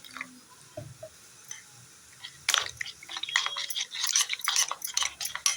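Wet flour batter being stirred with a spoon in a bowl, with squelching and quick clicks of the spoon against the bowl, starting about two and a half seconds in after a quiet moment.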